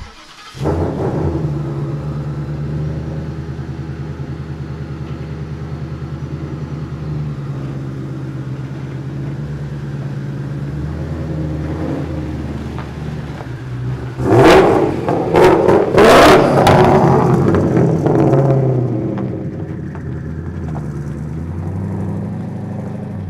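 Twin-turbocharged Ford Coyote 5.0 V8 in a 1979 Ford F100 idling with a steady, even pulse. About two-thirds of the way in it is revved hard several times, the loudest part, then settles back to a lower, steady running as the truck pulls away.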